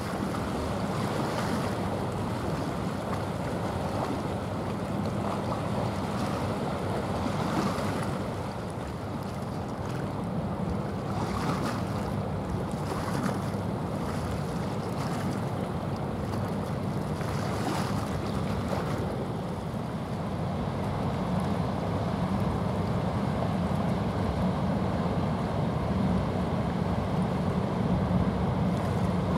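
Water rushing and splashing along the hull of a small aggregates carrier passing close, over a low steady rumble, with wind gusting on the microphone now and then.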